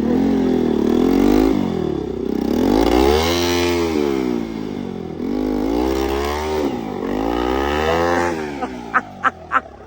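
Motorcycle engine revved hard again and again, its pitch climbing and dropping as the bike churns through mud. A few sharp clicks come near the end.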